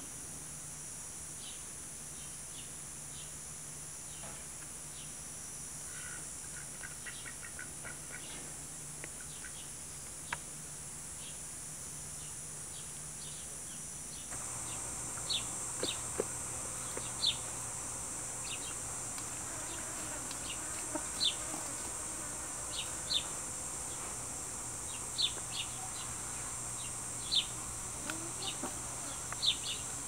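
Outdoor summer ambience: a steady high-pitched insect drone with short, high bird chirps scattered through it. About halfway through, the whole sound steps up a little louder and the chirps come more often and more sharply.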